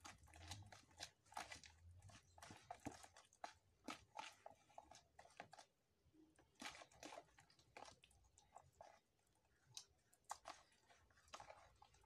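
Hands squeezing and mixing pancake batter in a plastic bowl: faint, irregular wet squelches and clicks.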